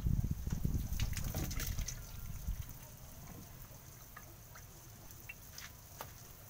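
Water trickling and dripping from a garden hose into a plastic bucket. There are low bumps and knocks in the first couple of seconds, then scattered small drip ticks.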